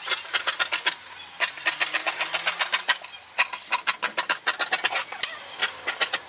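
Tailor's shears cutting through folded cloth: a rapid, uneven run of crisp snips as the blades close again and again.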